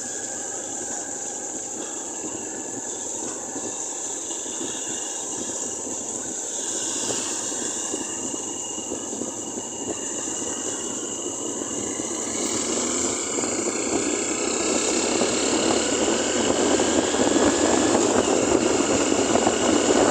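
Vehicle engines and road traffic noise, growing steadily louder over the last several seconds.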